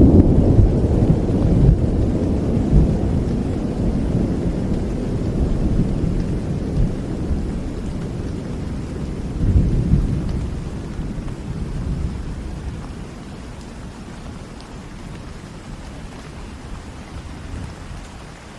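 Rolling thunder rumbling over steady rain, loudest at the start, swelling again about halfway, then dying away until mostly rain is left.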